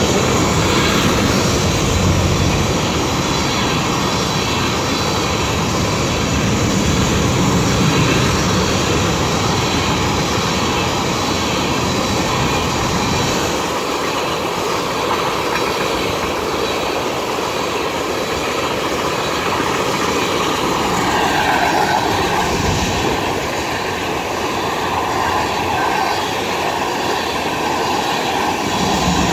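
Railroad tank cars of a long freight train rolling past, a steady rumble and rattle of steel wheels on rail. The low rumble is heavier for the first dozen seconds or so.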